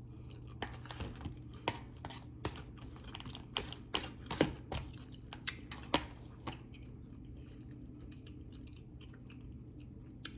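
A person chewing food close to the microphone, with frequent wet smacking clicks for about six seconds that then die down to soft chewing.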